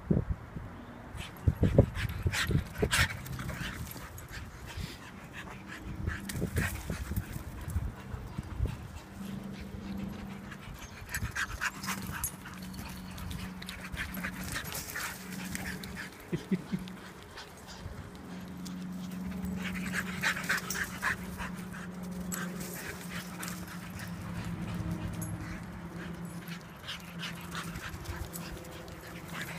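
Two pit bulls playing and running, with bursts of quick panting breaths, and a few sharp knocks about two seconds in.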